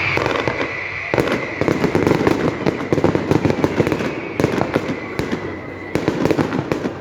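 Fireworks going off: a high, steady whistle, joined about a second in by dense, rapid crackling that stops near the end.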